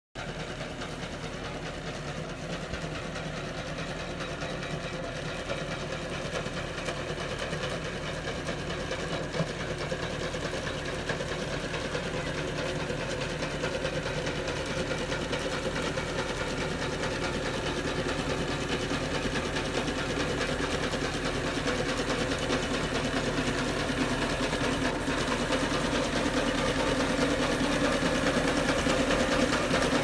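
Tracked skid steer with a boom-mounted chainsaw pruner attachment running, a steady mechanical drone of engine and cutting head that grows gradually louder as the machine approaches.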